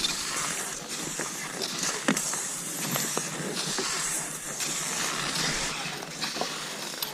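Cross-country skis gliding and scraping over snow in repeated strides, each stride a swell of hiss, with a few sharp clicks between.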